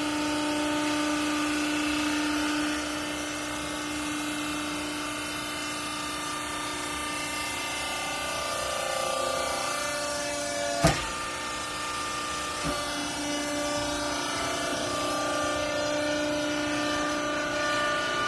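Wiper-rag baling machine running with a steady whine of several pitches that shift a little as the load changes. There is one sharp clank about eleven seconds in and a lighter knock soon after.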